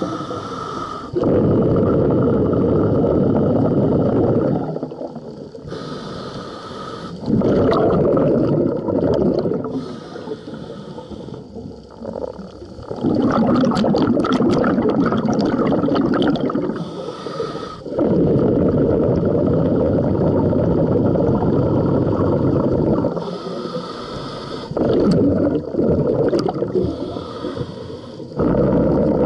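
Scuba diver breathing through a regulator underwater: about five long exhalations, each a rush of bubbling that lasts two to five seconds, alternating with shorter inhalations that carry a thin hiss from the regulator.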